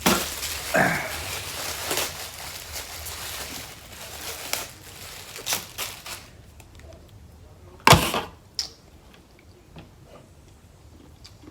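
Rustling and clicking of a seafood meal and its packaging being handled, with one loud sharp crack about eight seconds in.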